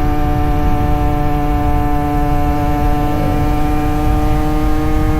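Two-stroke motorcycle engine running at a steady high pitch, rising slightly over the seconds, over a rough low rumble.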